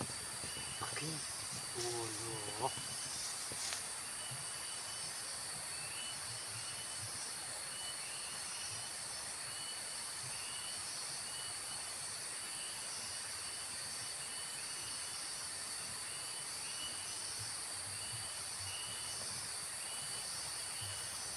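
Outdoor insect chorus: a steady, high-pitched drone with a short chirp repeating about once a second.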